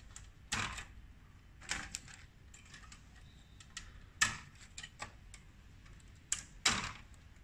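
Short plastic clicks and scrapes, about five of them, as cable connectors and a flat ribbon cable are pulled out of the printer mainboard's sockets.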